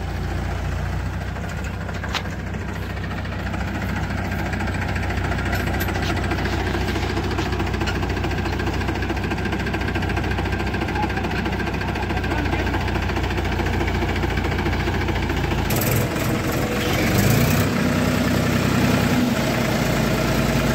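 Powertrac diesel tractor engines running steadily under load as the tractors pull through deep mud. About 17 seconds in, an engine note rises and holds at a higher pitch.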